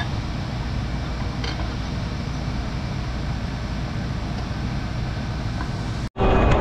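Farm tractor running steadily at a constant engine speed, with a fan-like hum over it. About six seconds in the sound drops out for an instant and a louder running sound with a steady whine takes over.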